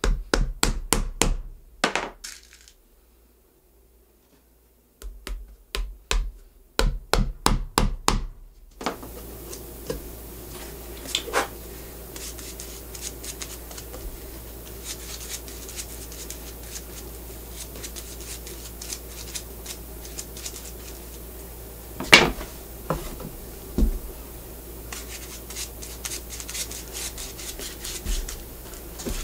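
Quick runs of sharp hammer taps, about five a second, with a short pause between runs. About nine seconds in, a shop finishing machine starts and runs steadily with a low hum, broken by a few knocks.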